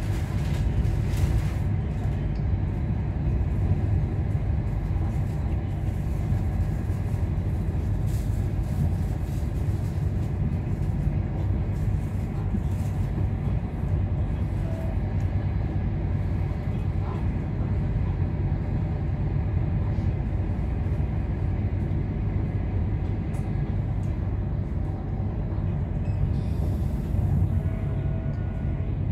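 Moving train heard from inside the carriage: a steady low rumble of wheels on rail, with occasional faint clicks.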